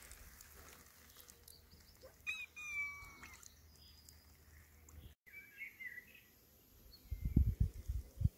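Faint bird chirps: a couple of short whistled calls, one about two seconds in and another about halfway through. Then, near the end, a run of loud low thuds and rumbles.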